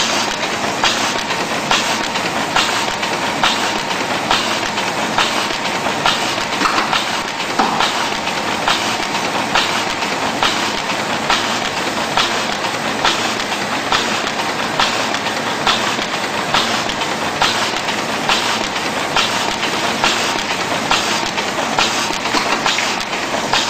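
Automatic sheet-fed offset printing press running: a steady mechanical clatter with a sharp clack repeating evenly a little faster than once a second.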